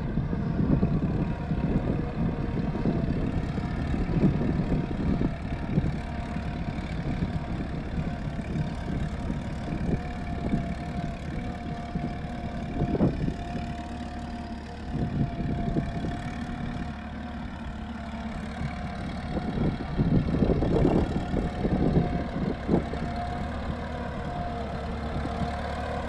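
1939 Fordson tractor's four-cylinder engine running steadily under load as it pulls a trailed plough through stubble.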